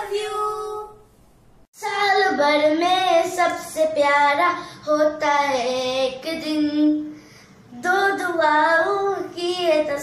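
A young girl singing a melody solo, with no accompaniment. A held sung note ends about a second in, and after a short gap her singing starts again, with notes that bend and are held.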